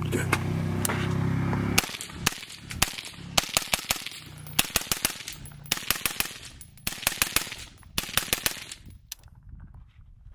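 An electronic shot-timer beep sounds for nearly two seconds. Then a suppressed AR-15-style rifle fires rapid strings of shots with brief pauses between strings, stopping about a second before the end.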